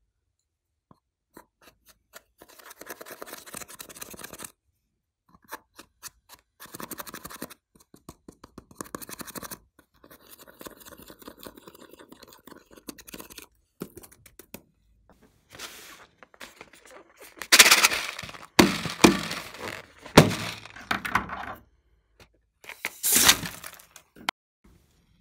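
A tool scraping and crumbling pressed eyeshadow out of a plastic palette in short scratchy strokes, then louder knocks and crackling bursts over the last several seconds.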